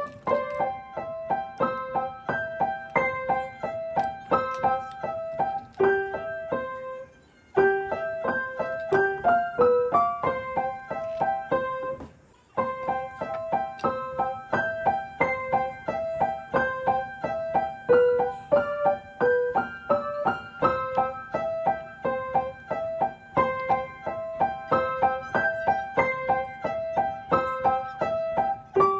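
Background music: a piano playing a steady run of notes, with two brief pauses.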